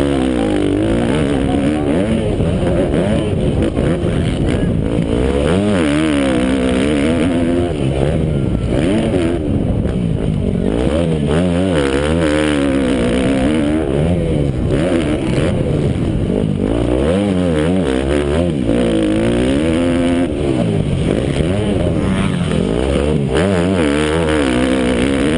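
Motocross dirt bike engine running hard, its pitch rising and falling again and again as the throttle is opened and closed.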